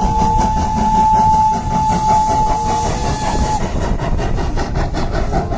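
Toy Thomas the Tank Engine train playing its train sound effect: one long steady whistle lasting about three and a half seconds, then stopping, over a fast, steady chugging rhythm.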